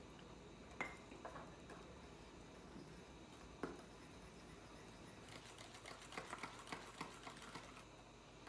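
Faint glaze mixing in a small bowl: a few separate taps and clicks, then from about five seconds in a run of quick light ticks as the utensil stirs powdered sugar, vanilla and water together against the bowl.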